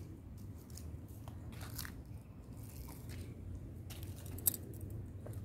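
Scattered small crackles and clicks of dry leaves and grit underfoot, with one sharper click about four and a half seconds in, over a low rumble.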